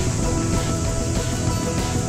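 Background music with many sustained notes over a dense, steady low end.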